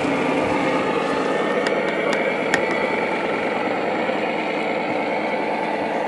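Steady running noise of radio-controlled model trucks, with a faint whine and a few light clicks about two seconds in.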